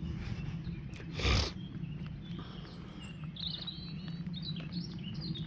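Small birds chirping and twittering in quick short phrases from about three seconds in, over a steady low background rush, with one brief rustling noise burst about a second in.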